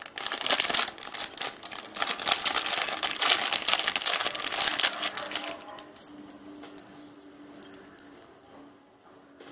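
Thin clear plastic bag crinkling and rustling as it is opened and a metal charm bracelet is pulled out of it. The crackling stops after about five and a half seconds, leaving a few faint clicks as the bracelet is handled.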